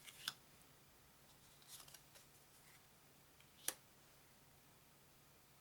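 Game cards handled and laid down on a table: faint rustling and light taps, with one sharper click about two thirds of the way through, over quiet room tone.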